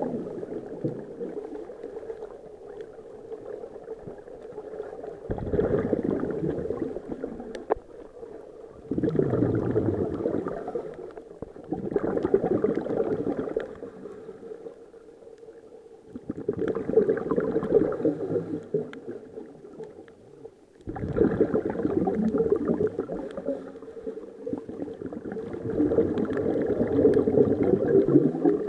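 Scuba diver breathing through a regulator underwater: exhaled air bubbles out in gurgling bursts of one to two seconds, about every four to five seconds, with quieter pauses between them as the diver inhales.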